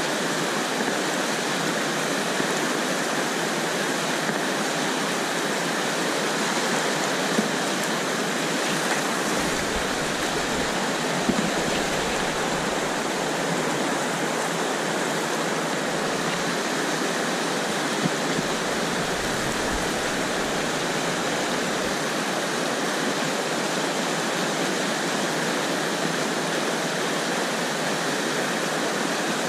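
Whitewater of a river rapid rushing over rocks close around a kayak: a steady, loud hiss of water. From about ten seconds in, a low rumble comes and goes for some ten seconds.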